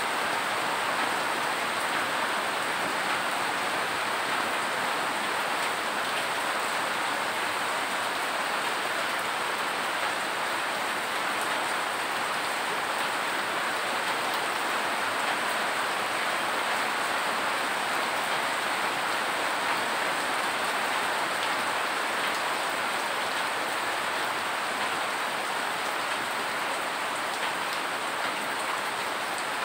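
Steady rain falling, with rainwater dripping in an even, unbroken hiss.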